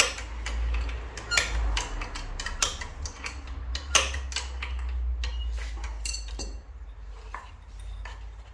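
Irregular metallic clinks and scrapes from a wrench working the coil spring compressor on a strut's coil spring, with a few louder ringing clinks along the way, as the compressor is tightened to take the spring's load off.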